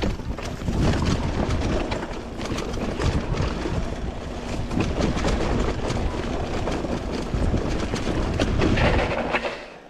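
Mountain bike rolling fast over a rough trail: wind buffeting the microphone with a heavy rumble, and the bike clattering and rattling over bumps. It dies away sharply near the end.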